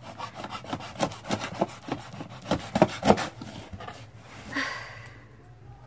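A package being torn open by hand: a run of irregular scraping, ripping rasps, loudest about three seconds in. A brief pitched sound follows about four and a half seconds in.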